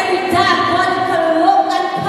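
A woman singing a worship song, holding long notes.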